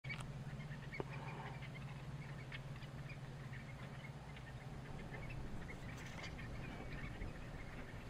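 A feeding flock of common redshanks giving many short, soft calls that overlap as a scattered chatter, over a low steady hum. A single sharp click comes about a second in.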